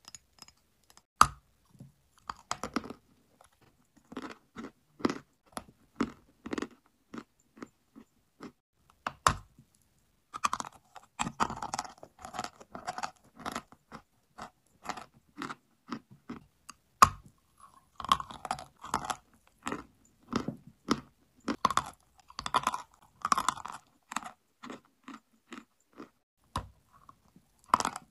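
A block of dry chalk being bitten and chewed: a few sharp snaps as pieces break off, with clusters of gritty crunching between them as the chalk is chewed.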